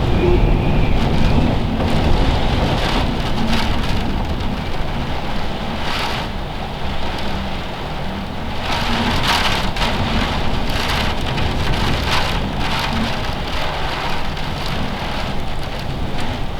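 Storm-force wind gusting hard, buffeting the microphone with a heavy low rumble, while rushing surges of noise swell and fade, strongest about halfway through.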